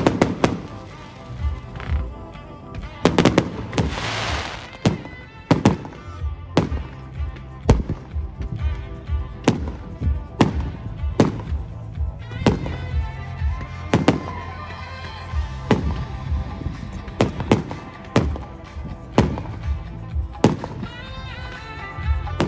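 Fireworks display: a steady run of sharp bangs from bursting aerial shells, a few every couple of seconds, with a hissing, crackling burst about three to four seconds in.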